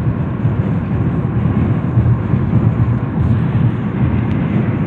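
Steady low road and wind rumble of a car driving at highway speed, heard inside the cabin.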